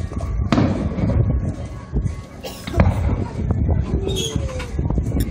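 Aerial fireworks shells bursting: a bang about half a second in and a louder one just under three seconds in, over a steady low rumble.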